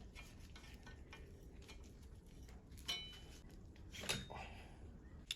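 Faint metallic clinks and taps of tools and bike parts being handled during bicycle assembly, with two sharper metal knocks about three and four seconds in, the first ringing briefly.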